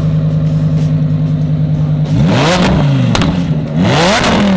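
Supercharged Lamborghini Huracán V10 with a titanium center-mount exhaust, idling steadily, then blipped twice about two seconds apart. Each rev rises and falls back, and the first drop-off has a sharp crack from the exhaust.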